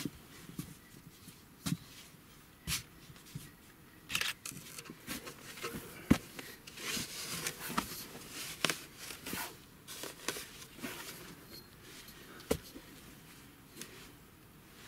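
Irregular rustling and scraping with sharp clicks from hands handling dug-up objects and soil, the sharpest click about six seconds in.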